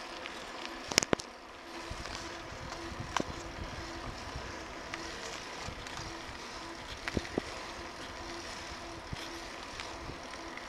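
Bicycle rolling along a paved trail: a steady rolling noise with scattered sharp clicks and rattles from bumps, a pair of loud ones about a second in, and a faint tone that pulses on and off.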